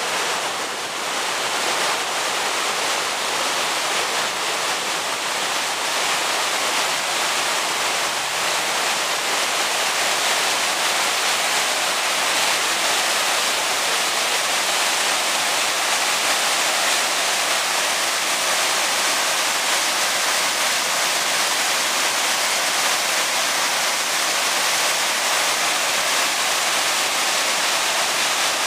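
River rapids: whitewater rushing over rocks with a steady, even rush.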